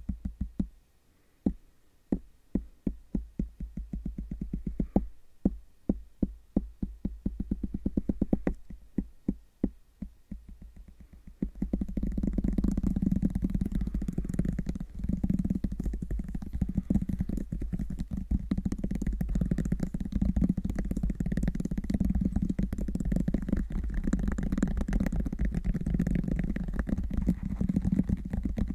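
Close-microphone ASMR tapping by fingers: short clusters of quick taps at first, then, about twelve seconds in, a dense, continuous run of very fast tapping and rubbing right on the microphone.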